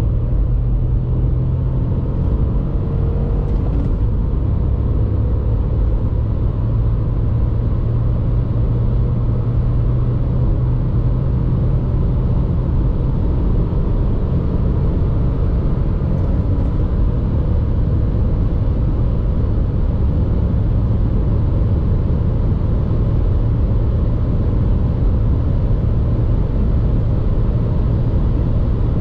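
Dacia Logan TCe 100's 1.0-litre three-cylinder turbo engine pulling hard under acceleration, heard inside the cabin over heavy wind and road noise as the car climbs from about 85 to 165 km/h. There is an upshift partway through.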